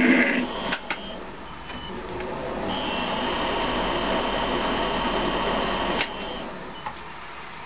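Metal lathe running with its four-jaw chuck spinning while an M19×2 thread is cut in a cast-iron mandrel. A loud cutting noise lasts about half a second, then comes the machine's steady run with a high whine, which ends in a sharp click about six seconds in.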